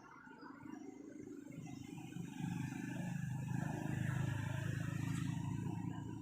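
A motor vehicle's engine running close by, a low steady hum that grows louder over a few seconds and then fades, as a vehicle passing.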